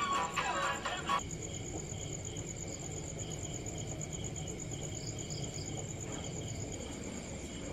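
Background music stops about a second in, leaving crickets chirping: a fast, steady high trill with a slower chirp repeating a few times a second underneath.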